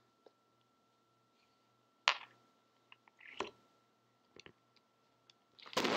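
Scattered light clicks and taps, with one sharper click about two seconds in and a louder rustle-like burst near the end, over a faint steady hum.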